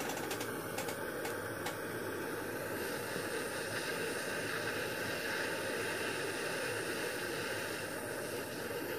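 Small dental soldering torch burning with a steady hiss as its cone flame heats an orthodontic appliance joint for silver soldering. A few faint ticks come in the first two seconds.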